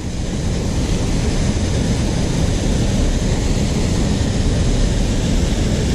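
Steady rushing water of a river with a small waterfall.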